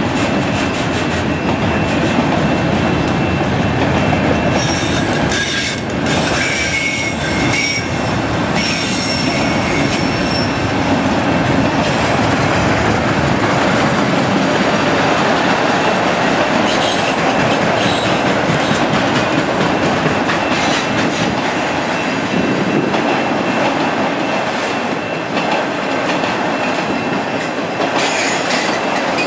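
Canadian National autorack freight cars rolling past close by: a steady rumble of steel wheels on rail. High-pitched wheel squeal rises over it about five to nine seconds in, briefly around seventeen seconds, and again near the end.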